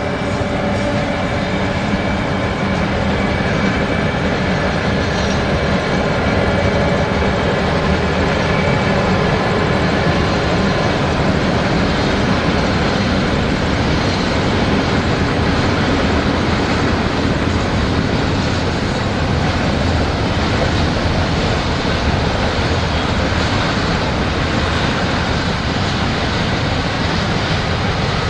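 Freight train passing: a long string of container and box wagons rolling by at speed with a steady rolling noise. A hum from the EF class electric locomotives fades over the first ten seconds or so as they move away.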